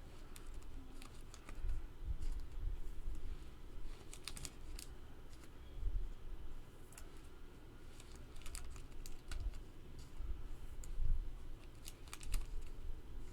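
Baseball cards being slid into plastic penny sleeves and handled on a table: irregular light clicks, crinkles and soft taps.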